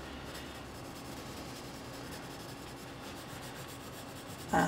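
Caran d'Ache Luminance colored pencil rubbing and scratching across textured cold-press watercolor paper in continuous faint shading strokes.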